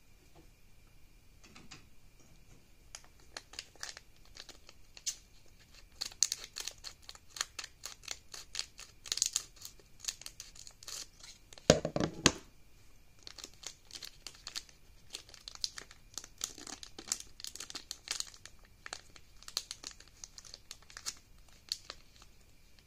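Plastic food packaging crinkling and crackling in the hands as a small Rice Krispie treat is worked out of its pouch and plastic wrap. The crackles are irregular and sharp, and the loudest comes about twelve seconds in.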